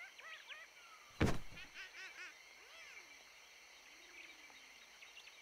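A single deep thump about a second in, followed by quick high bird chirps over a faint, steady background of jungle ambience.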